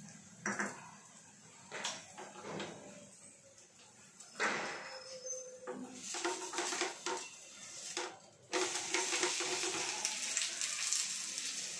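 A wooden spatula knocking and scraping in a flat frying pan as a wheat-flour adai is worked, then about eight and a half seconds in a sudden steady sizzle of the adai frying in oil on the hot pan.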